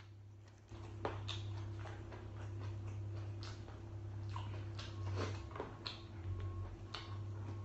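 Close-up eating sounds: wet chewing and lip-smacking as a person eats fried noodles and meat by hand, a string of short irregular clicks and smacks. A steady low hum comes in just before a second in and runs under them.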